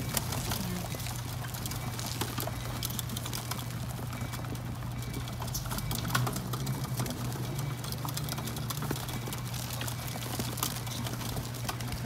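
Flock of feral rock pigeons pecking sunflower seeds off a rooftop ledge: a dense, irregular patter of beak taps and scuffling feet, over a steady low hum.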